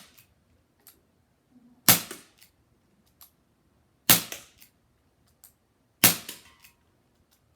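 Crosman SNR 357 CO2 air revolver firing three shots about two seconds apart, each a sharp crack with a short ring-out, with faint clicks between shots.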